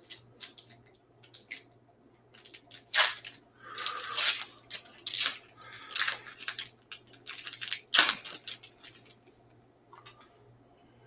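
Foil wrapper of a 2022 Topps Gallery baseball card pack being torn open and crinkled by hand: a run of irregular crackling rustles, the sharpest about eight seconds in, stopping about a second later.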